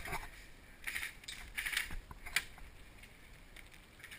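A handful of sharp clicks and knocks, bunched in the first two and a half seconds, over a faint hiss.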